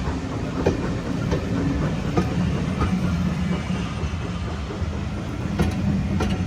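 Moving train running on the rails: a steady low rumble with irregular sharp clacks as the wheels pass over rail joints.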